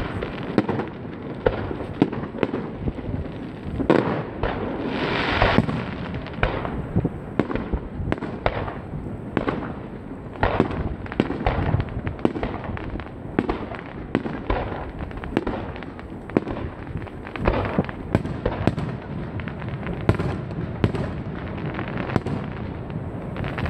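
Aerial firework shells bursting in quick succession: a run of sharp bangs and crackling, with a louder stretch of hissing crackle about five seconds in.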